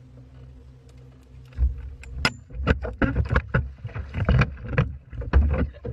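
Splashing and knocking at the side of a boat as a man falls overboard and grabs the gunwale: a heavy splash about a second and a half in, then a string of sharp splashes and knocks.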